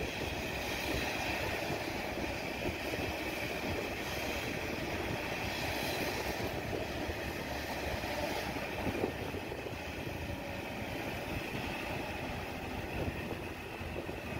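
Steady rumble of road and engine noise from vehicles driving along a highway.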